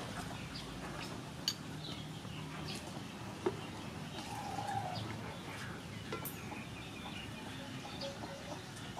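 A chicken clucking now and then over a steady background hum, with two sharp clicks of a metal spoon against a ceramic bowl.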